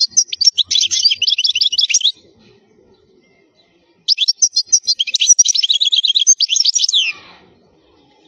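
European goldfinch singing: two rapid, twittering phrases of high trills and buzzy notes about two seconds apart, the second ending in a downward slur.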